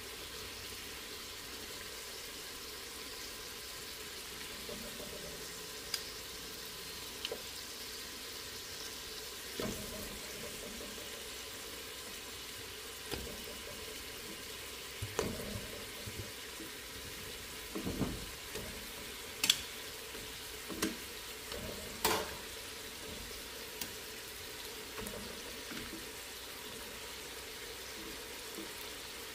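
Oxtails and sautéed onion sizzling steadily in a pot as they are stirred, with scattered knocks and clinks of a utensil against the pot, the sharpest about two-thirds of the way through.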